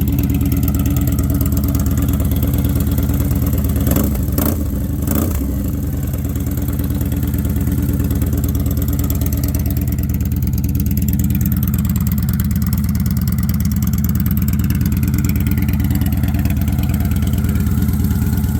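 2016 Victory Cross Country Tour's V-twin running with its stock mufflers removed, idling loud and steady, with a couple of short sharp sounds and a brief change in the engine note about four to five seconds in.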